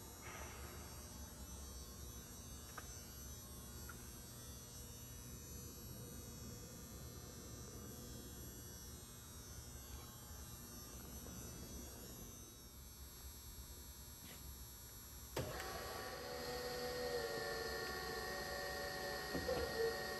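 Brown & Sharpe #618 Micromaster surface grinder: a low electrical hum, then about three-quarters of the way through a click as the motor switches on, settling into a steady whine of several pitches.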